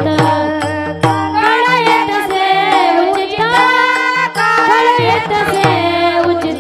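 A woman singing a devotional Marathi panchapadi in a gliding, ornamented melody over a steady drone, with regular hand-drum strokes keeping time.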